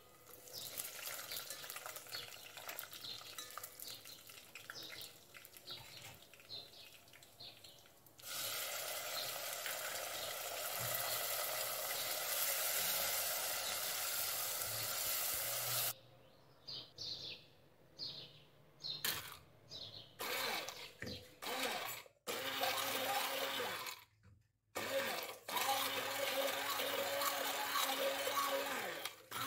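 Sliced onions sizzling in hot oil in a steel pot while a spoon stirs and scrapes them; about eight seconds in the sizzle turns much louder as tomatoes fry in the bubbling oil. From about sixteen seconds an electric hand blender runs in short bursts and then longer runs, whirring through a paste in a steel bowl.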